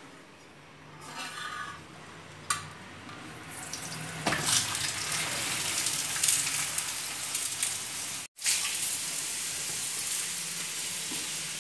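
Ghee sizzling on a hot tawa as it is brushed over a paratha frying on the griddle. The sizzling starts about four seconds in and then holds steady, with one brief sudden cut-out.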